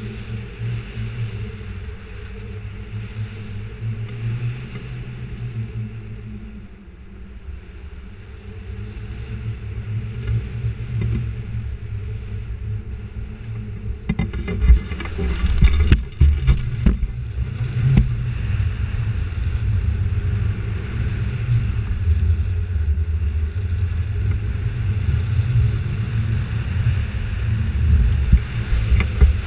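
Wind rushing over the microphone of a camera mounted on a hang glider in flight: a low, buffeting rumble that rises and falls, growing louder about a third of the way in, with a few sharp crackles about halfway through.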